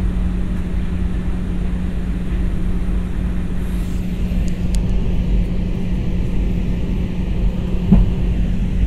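Steady engine and airflow noise inside an airliner's passenger cabin, with a constant low hum, and a brief knock about eight seconds in.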